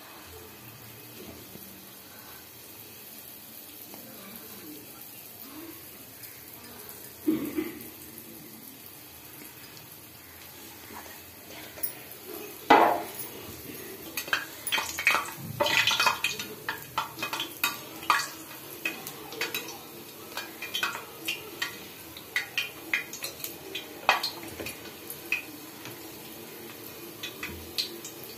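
Paakundalu deep-frying on a low flame in a metal kadai, the oil sizzling steadily. A knock comes about seven seconds in, and from about halfway there are frequent sharp clinks of metal utensils against the pan.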